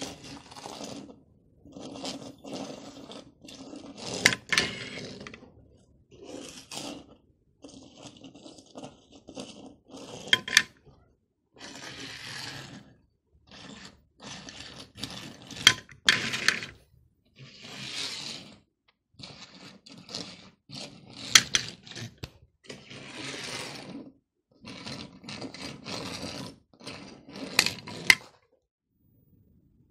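Die-cast toy cars being rolled and scraped across a table top, in repeated short bursts of rolling noise about a second long, with sharp clicks and clacks as the metal cars are set down or knock together. The handling stops shortly before the end.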